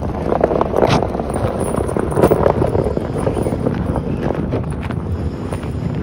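Mahindra Scorpio N pulling away slowly on packed snow with a snow chain on its rear wheel: a run of quick clinks and crunches from the chain and tyre on the snow over the low sound of the engine.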